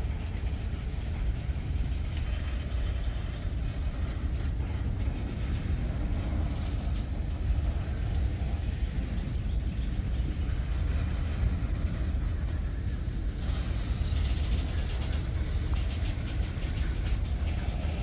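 A CSX manifest freight train's covered hopper cars rolling past, a steady rumble of steel wheels on rail.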